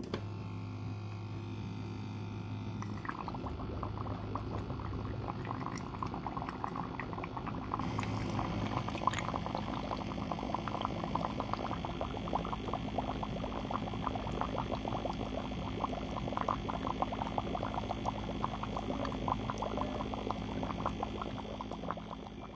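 Water churning and bubbling through a small 3D-printed propeller-driven fish-waste filter running submerged in a tank, over a steady low hum. The bubbling starts about three seconds in and stays steady.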